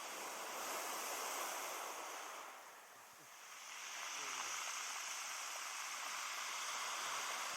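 Sea surf washing onto a rocky shore: a steady rush of waves that fades about three seconds in, then swells back up.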